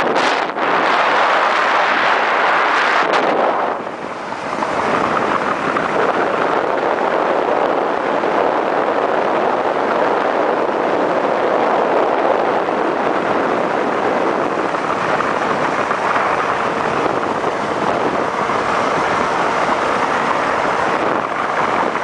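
Steady rush of wind over the microphone of a moving motorcycle, with the engine running underneath; the rush dips briefly about four seconds in.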